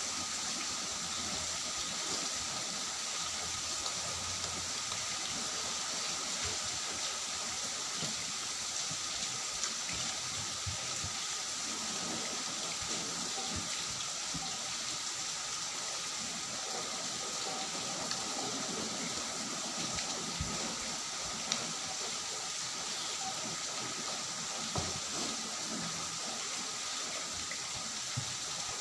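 Steady hiss throughout, with soft scattered clicks and squelches as fingers mix rice and pumpkin curry on a stainless steel plate. A few sharper ticks come in the second half.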